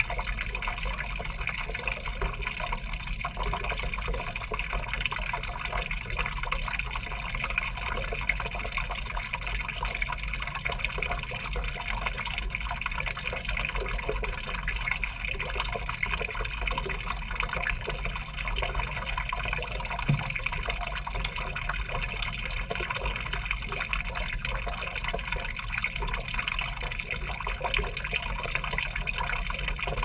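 LG top-load washing machine filling: water pours from the inlet onto the wet laundry and splashes into the tub, heard from inside the drum as a steady rush.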